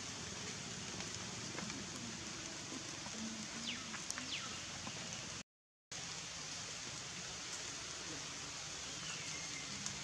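Steady hiss of outdoor background ambience with a few faint high chirps just before the middle. The sound cuts out completely for about half a second just past halfway.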